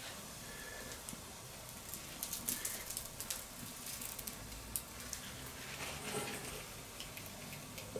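Faint sizzling of breaded pieces frying on a hot steel fire plate over a charcoal fire, with a cluster of sharp crackles and clicks about two to three and a half seconds in as metal tongs turn and stand the pieces up.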